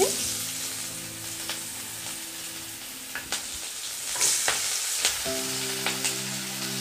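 Chopped onions sizzling as they fry in hot refined oil in a non-stick kadai, with a metal spoon clicking and scraping against the pan as they are stirred.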